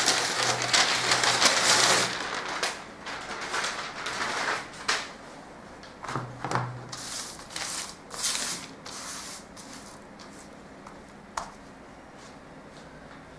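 Stiff brown pattern paper rustling and crackling as cut pattern pieces are handled and laid out on a table. It is dense in the first two seconds, then comes in shorter rustles until about two-thirds of the way through, with a single light click near the end.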